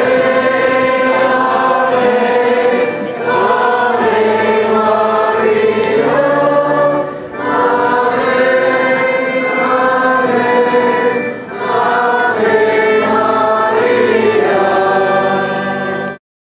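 A crowd singing a hymn together in long sustained phrases, with short breaks between them about every four seconds; the singing cuts off suddenly near the end.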